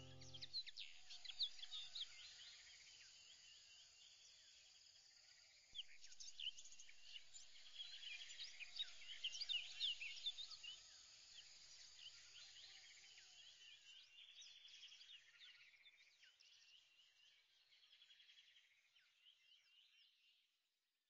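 Faint chirping of many small birds, quick high calls overlapping one another, thinning out and fading away near the end.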